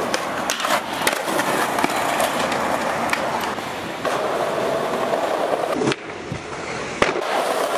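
Skateboard wheels rolling over rough concrete, with several sharp clacks of the board. The rolling noise cuts out about six seconds in and comes back with a hard clack about a second later, like a board leaving the ground and landing.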